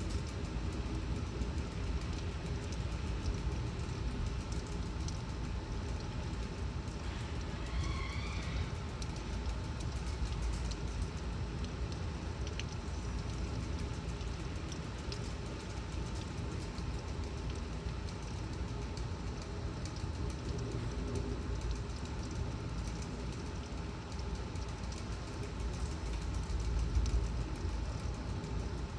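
Torrential rain and gusting wind of a severe thunderstorm: a steady rushing downpour over a deep, continuous rumble. A brief high wavering chirp sounds about eight seconds in.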